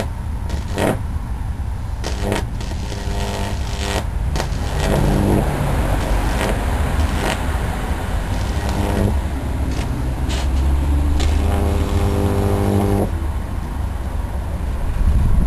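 High-voltage arc from a 1000-watt microwave oven transformer, current-limited by a series microwave capacitor, burning across a circuit board. It makes a steady mains buzz with irregular crackling snaps, and the buzz grows stronger and more tonal in stretches.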